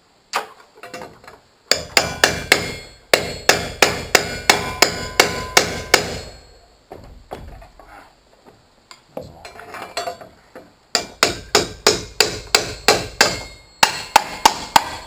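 Hammer driving nails through a steel joist hanger into a wooden joist, quick steady blows about three a second. Two runs of hammering with a quieter pause of a few seconds between them.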